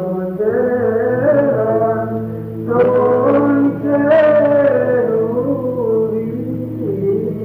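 Byzantine chant sung by male voices: a slow melismatic melody moving over a steady low held drone note (the ison).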